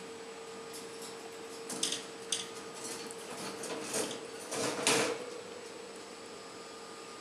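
Baby squirrels scrambling on a wire cage: a few short clatters and rattles of claws on the wire mesh, the loudest about five seconds in, over a faint steady hum.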